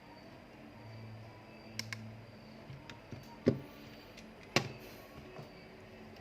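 Two sharp knocks about a second apart, with a few lighter clicks, over a faint low hum in a small room.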